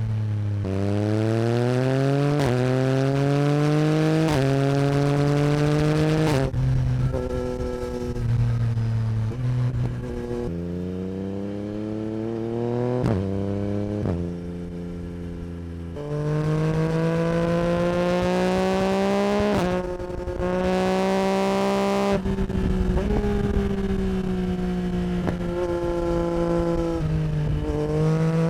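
Yamaha MT-09 SP's 890 cc three-cylinder (CP3) engine through an Akrapovic Racing Line exhaust, accelerating hard through the gears: the pitch climbs and drops back sharply at each upshift, over and over, with a few short lulls where the throttle is eased off.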